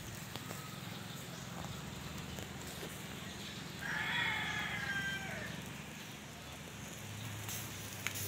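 A rooster crows once, about four seconds in, for just over a second, over a low steady hum.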